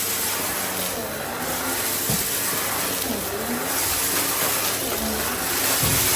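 Goodmans TurboMax vacuum cleaner running: a steady rushing of air with a high, thin motor whine.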